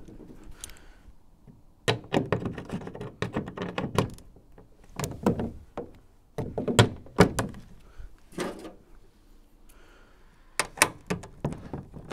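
Irregular knocks and clunks as tools and bolt hardware are handled on a jon boat while a stabilizer is being bolted on, coming in several short clusters with quiet gaps between.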